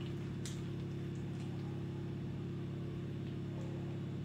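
Steady low electrical-sounding hum, even and unchanging, with one faint click about half a second in.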